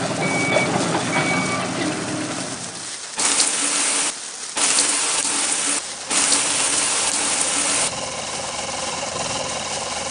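Toy fire truck sounds: a few short electronic beeps at the start, then three bursts of hissing spray, each about one to two seconds long with short breaks between, as the toy's hose sprays on the fires.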